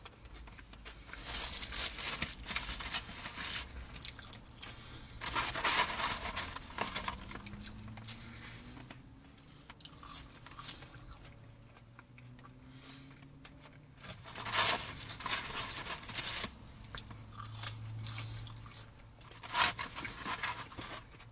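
Close-up chewing and crunching of crispy fried chicken. The crisp crackling comes in several loud bursts, with quieter stretches between.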